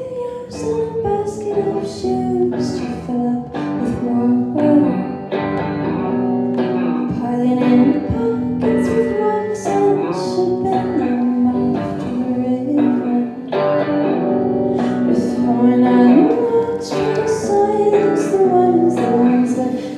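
A live band playing a song: electric guitar and a woman singing, over a steady beat.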